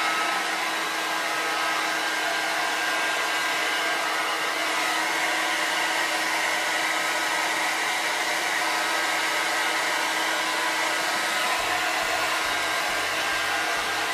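Imetec Eco hair dryer running steadily: a constant rush of blown air with a steady motor hum.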